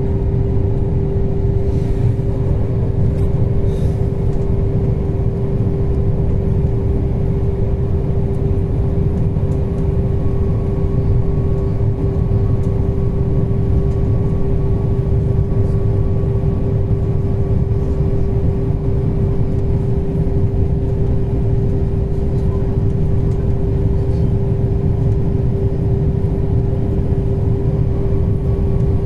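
Passenger train running steadily along the line, heard from on board: a continuous low rumble with a constant hum held at one pitch.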